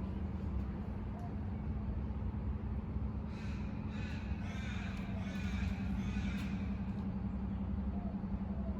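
A crow-like bird cawing for a few seconds in the middle, over a steady low hum.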